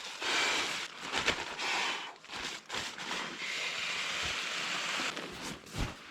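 Rustling and crinkling of nylon sleeping gear being handled, with many short scuffs and a steadier stretch of rustling in the middle.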